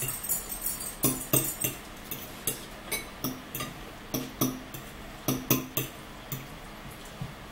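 Metal fork and spoon clinking and scraping against plates and a bowl at the table, in irregular clinks about three a second that thin out near the end.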